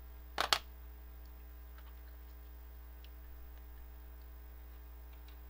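Steady low mains hum, with two sharp clicks close together about half a second in.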